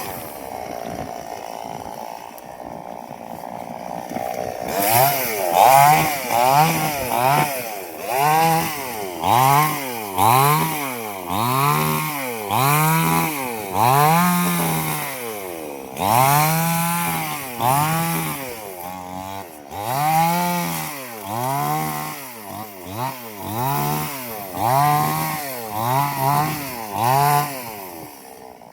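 Chainsaw engine running low for a few seconds, then revved up and down over and over, about once a second, each rev rising and falling in pitch.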